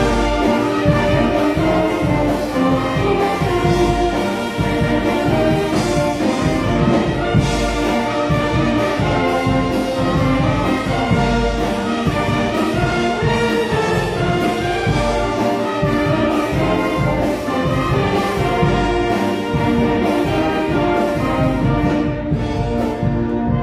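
Concert band of brass and woodwinds playing an arranged pop-song medley, with brass to the fore and a steady level throughout.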